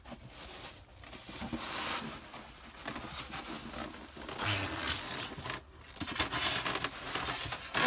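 Polystyrene foam shipping box being worked open by hand: the foam lid scrapes and squeaks against the box, with rustling and tearing noises in irregular bursts.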